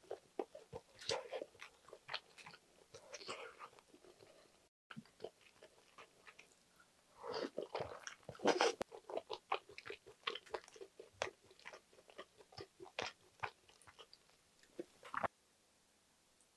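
A person chewing a mouthful of kimchi-braised pork belly and rice, with many short wet clicks and smacks of the mouth, louder for a spell a little past the middle. The eating sounds stop about a second before the end.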